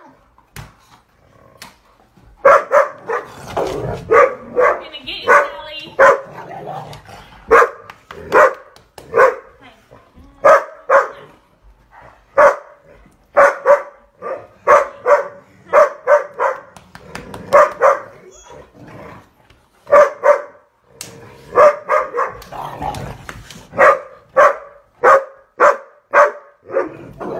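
Dogs barking over and over, short sharp barks coming one or two a second, often in quick runs: the excited barking of dogs crowding a person in play.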